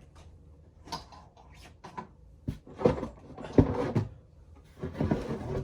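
Prop parts being lifted out of a packed cardboard box: a series of knocks, thumps and rustles, loudest around three to four seconds in.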